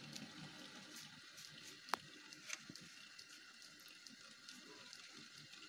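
Homemade fan-winding machine running faintly: a quiet steady whir with scattered light clicks, the sharpest about two seconds in.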